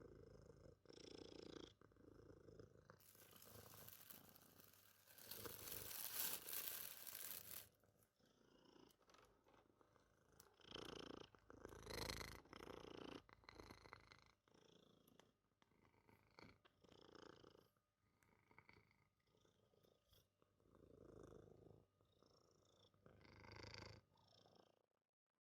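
A cat purring softly in slow swells, with a few sharp clicks. About three seconds in, a louder hissing stretch of noise lasts some four seconds.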